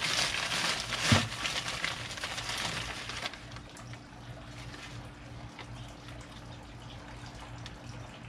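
Newspaper rustling and crinkling as a glass bottle is unwrapped from it, with one knock about a second in. The rustling stops about three seconds in, leaving a faint steady hum.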